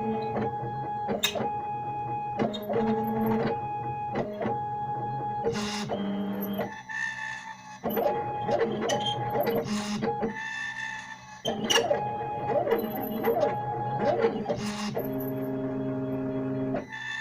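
Stepper motors of a homemade CNC machine whining at steady pitches that step and glide up and down as the axes move, speed up and slow down, with a few sharp clicks.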